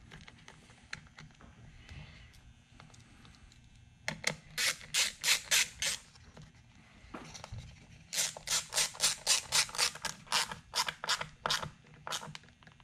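Ratcheting screwdriver clicking in two quick runs, about six clicks a second, as a screw is driven into the steering wheel's paddle-shifter mount.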